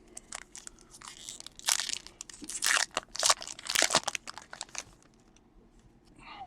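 Crinkling and crunching of a trading-card pack's wrapper being handled, in a run of short bursts lasting about four seconds.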